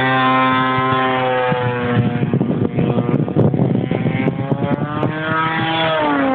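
Gasoline engine of a giant-scale radio-control Yak-54 aerobatic plane, a DLA 64cc boxer twin, running in flight with its propeller. A steady tone for the first second and a half turns rough and uneven through the middle, then comes back steady and falls in pitch near the end.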